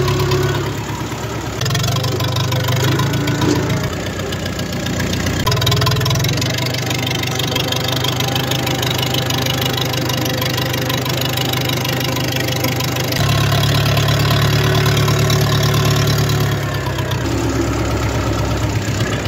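Diesel tractor engine running hard while pulling an implement over tilled ground, with a loud exhaust that has no silencer. The engine note swells and eases several times, loudest for a few seconds about two-thirds of the way through.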